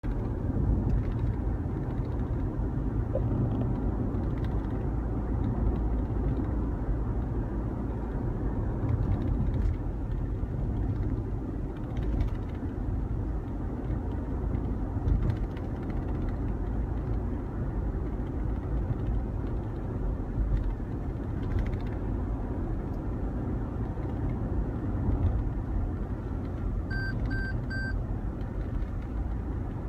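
Steady low rumble of a 2017 Toyota Highlander heard inside its cabin from the middle row. The owner ties this continuous vibration to the transmission replacement. Near the end come three short electronic beeps.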